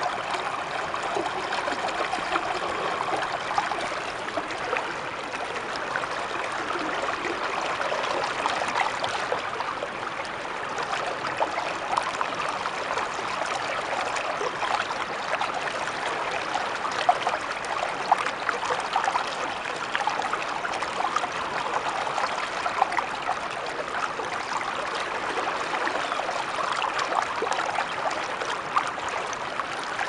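Steady rush of flowing water, from white water pouring and churning over rocks, with many small splashes throughout.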